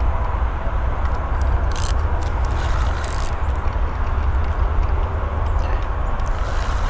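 Spinning reel (Daiwa Regal Bite & Run) being cranked to play in a hooked fish, under a steady low rumble of handling noise from the arm moving over the microphone.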